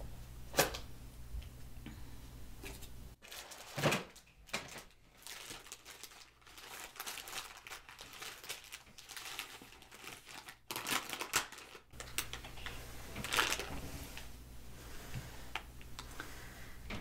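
Intermittent crinkling and rustling of plastic and paper as a baby wipe is handled, with the loudest rustles about four seconds in, and again around eleven and thirteen seconds in.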